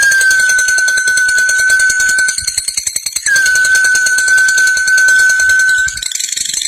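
Lovebird in a long, rapid chattering trill (the 'ngekek panjang' song), with a steady high whistle-like tone under it that begins twice, each time sliding slightly down in pitch.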